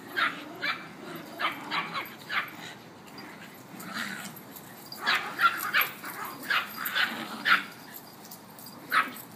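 Dogs barking and yipping in short, irregular bursts during a play chase, with brief lulls between volleys.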